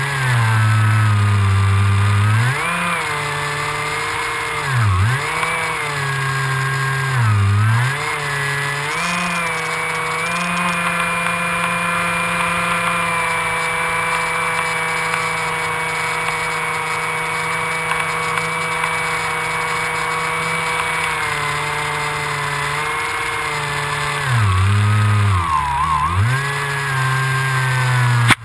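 Electric motor and pusher propeller of an AXN Floater Jet RC plane, heard from a camera on board, whining steadily under throttle. The pitch dips and comes back up briefly about five and seven seconds in, holds steady through the middle, and dips twice more near the end as the throttle is eased and reopened.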